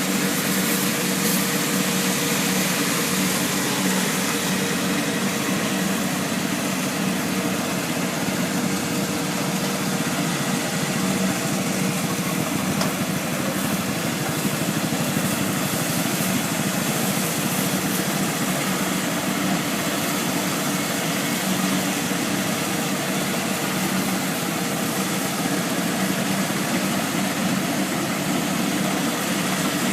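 Kubota DC70 Plus combine harvester's diesel engine and machinery running at a steady, unchanging drone.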